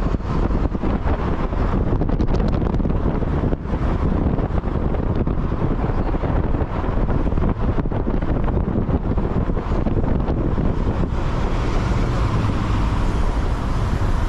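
Wind buffeting the microphone on the move, over the steady rumble of a vehicle and road noise.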